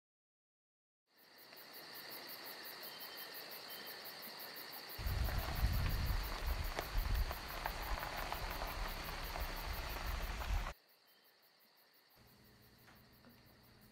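Insects chirring steadily outdoors, a high, fast-pulsing drone, joined about five seconds in by a low, uneven rumble. Both cut off abruptly about eleven seconds in, leaving faint indoor room tone.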